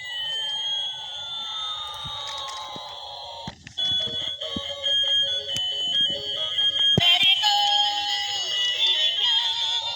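Electronic cartoon sound effects and a synthesized jingle. For about three seconds two tones glide apart, one rising and one falling. Then a busy tune of bright beeping notes starts, changing abruptly again about seven seconds in.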